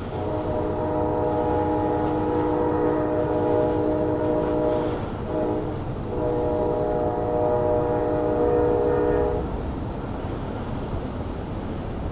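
Locomotive horn blowing: a long blast of about five seconds, a brief short blast, then another long blast of about three seconds. Under it is a steady low rumble.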